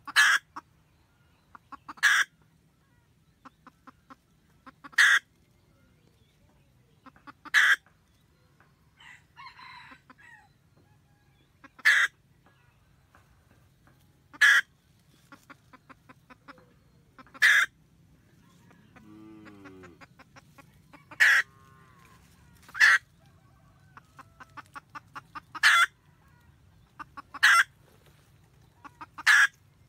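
Red junglefowl hen cackling to call the rooster. Runs of soft, quick clucks each end in a loud, sharp note, and the pattern repeats about every two to three seconds.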